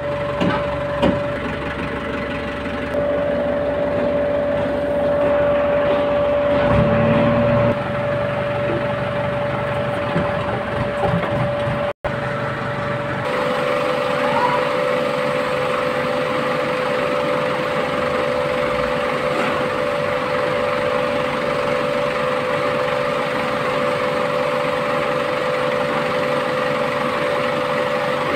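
JCB backhoe loader's diesel engine running steadily under work, with a steady high hum over it. The sound breaks off for an instant about twelve seconds in, then carries on evenly.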